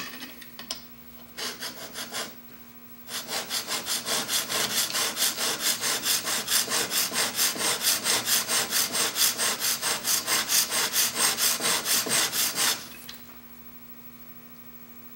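A Bahco chisel's bevel, held in a General sharpening jig, is scrubbed back and forth on a wet DMT diamond plate, grinding in the bevel before a burr has formed. A few strokes come first, then a long run of quick, even strokes at about three a second, which stops near the end.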